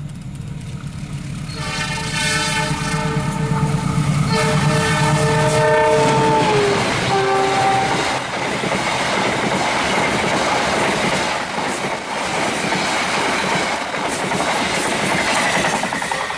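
Diesel locomotive's multi-tone air horn sounding two long blasts, the second dropping in pitch at its end, then a short blast, over the low rumble of the engine. Then the loud rushing clatter of passenger coaches passing at speed on the rails.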